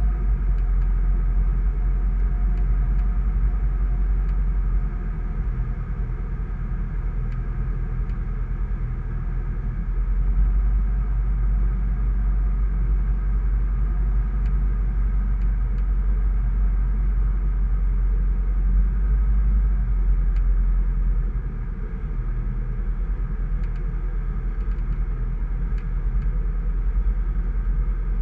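Sling 2 light aircraft's Rotax 912 flat-four engine and propeller running steadily, heard inside the cockpit as a loud drone with a heavy low rumble. The level drops slightly about five seconds in and again near twenty-one seconds.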